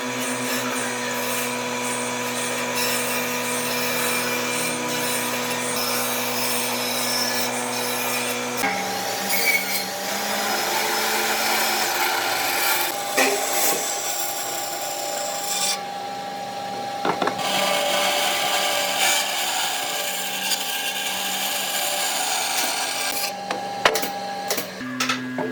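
An electric power tool working solid wood: a steady motor hum under a rasping wood-cutting noise. The motor's pitch shifts abruptly about a third of the way in and again near the end.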